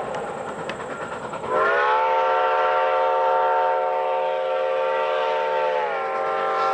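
Steam locomotive's chime whistle blowing a chord of several notes at once. One blast ends right at the start, followed by a stretch of hiss. A long blast begins about a second and a half in, sliding up in pitch as it opens, holding steady, and dropping in pitch near the end.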